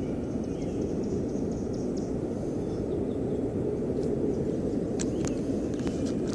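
Steady rushing outdoor background noise, with a few faint sharp clicks near the end.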